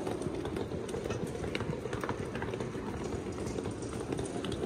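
Footsteps with the rumble of rolling luggage wheels, a steady low rolling noise broken by frequent small clicks and knocks.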